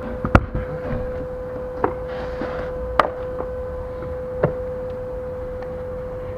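A few sharp knocks and clicks, four in about six seconds, over a steady high hum.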